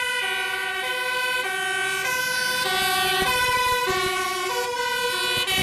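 Dutch fire engine's two-tone siren sounding on an emergency call, alternating steadily between a high and a low note.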